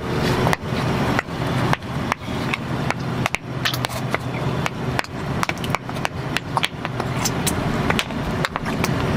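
Tide Pod laundry detergent pods bursting one after another under a slowly rolling pickup truck tyre: an irregular series of sharp pops and snaps, two or three a second, over the low running of the truck's engine.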